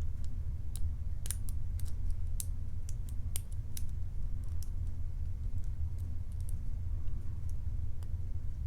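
Lock pick working the pins of a Matlock 2508 padlock under tension: irregular faint metallic clicks as pins are lifted and set, over a steady low hum. The picker is hunting for pins that may be serrated.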